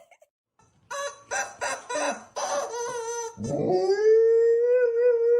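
A dog talking back in a few short yowling calls, then one long howl that swoops up and holds a steady pitch for about three seconds.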